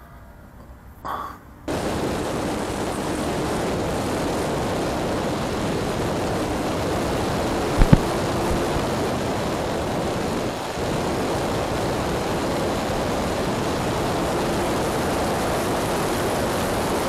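Steady rush of wind and electric motor-and-propeller noise on a camera mounted on a battery-powered RC airplane in flight. It starts suddenly about two seconds in and has two sharp clicks near the middle.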